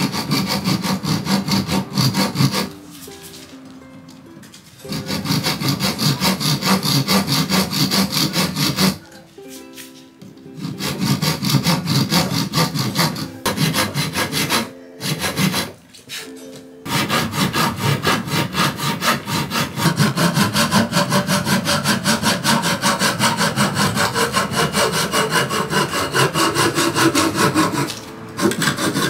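Japanese handsaw cutting through a round wooden chair leg in quick, even back-and-forth strokes, with a few short pauses. The sawing stops shortly before the end as the leg is cut through.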